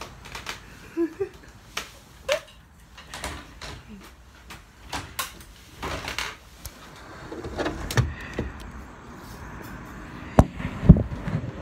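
Scattered knocks, bumps and rustling as people scuffle and a handheld phone camera is jostled, with several loud thumps near the end.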